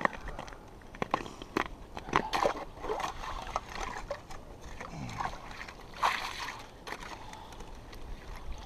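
Ice skimmer working in a fishing hole, clearing slush and broken ice: irregular sloshing of icy water with many sharp clicks and knocks of ice chunks against the metal scoop and the hole's edge.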